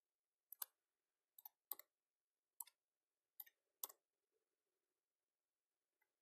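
Computer keyboard keys clicking in a short burst of typing: about ten sharp keystrokes, several in quick pairs, stopping about four seconds in.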